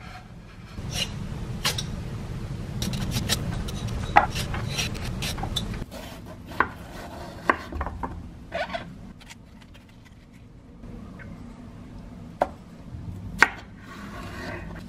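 A chef's knife cutting peeled melon on a wooden cutting board: scraping and rubbing with quick clicks at first, then scattered single taps of the blade on the board.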